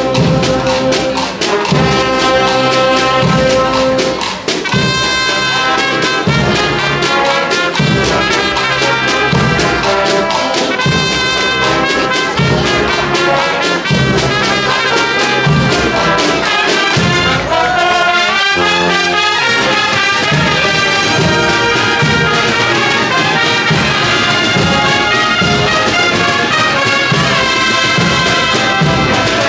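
Brass and percussion marching band playing a Semana Santa processional march: trumpets and trombones carrying the melody over low brass, with drums keeping a steady beat.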